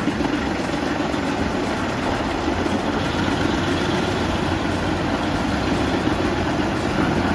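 A heavy machine's engine running steadily at a constant speed, with a dense, even mechanical noise.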